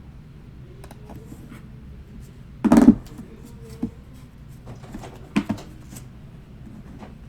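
Desk handling noises: a few light clicks and knocks, with one loud short thump about three seconds in and a smaller double knock a couple of seconds later.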